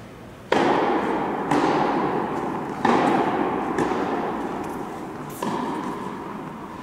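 Tennis rally: a tennis ball struck by rackets and bouncing on the hard court, five sharp hits about a second apart, each with a long echo in the hall.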